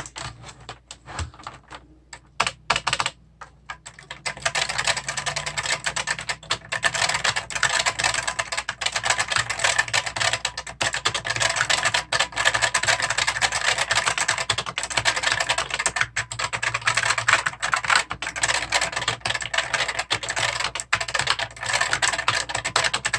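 Typing on a 1993 Trigem KB103 mechanical keyboard with Futaba switches: a few separate keystrokes, then from about four seconds in a fast, continuous clatter of keys. The keystrokes sound dull and thick, with the switch springs audible.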